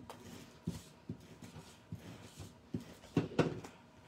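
Cardstock pieces handled and laid on a craft mat: a run of soft taps and paper rustles, loudest in a cluster about three seconds in.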